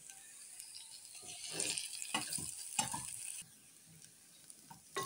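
Sliced onions sizzling gently in oil in a small stainless-steel saucepan, being sweated rather than browned. Between about one and three seconds in, a wooden spoon scrapes and knocks through them. The sizzle drops away about three and a half seconds in.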